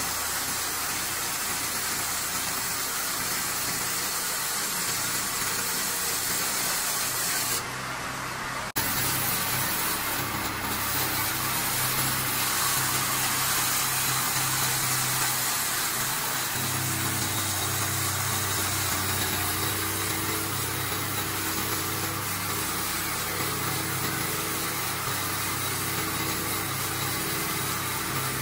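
Home-built horizontal band sawmill running steadily, its motor and blade cutting timber. The sound drops out briefly about eight seconds in, then returns with a steady low hum that grows stronger about halfway through.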